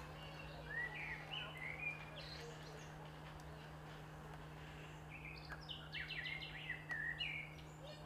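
A songbird singing two short phrases of quick chirping notes, the second with a rapid run of repeated notes, over a steady low hum.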